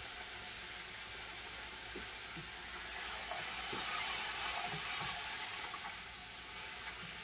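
Chicken livers deep-frying in hot oil: a steady sizzle with a few faint, scattered pops. The livers were pricked with holes to reduce popping, so they are popping only a little.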